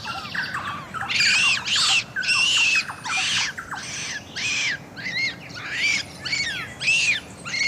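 Jungle ambience full of shrill, squawking bird calls, two or three a second, each call rising and falling in pitch.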